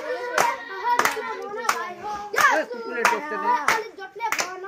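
A group of boys clapping their hands in a steady beat, about three claps every two seconds, while their voices sing or chant along between the claps.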